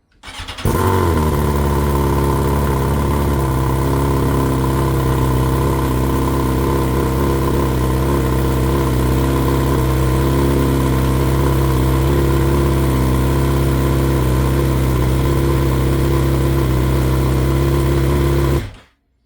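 BMW S1000XR's 999 cc inline-four, on decat headers with the official BMW dB killer fitted, starting under a second in and holding a steady high cold-start idle, then cut off abruptly near the end. The exhaust has definitely lost some low frequencies with the dB killer in.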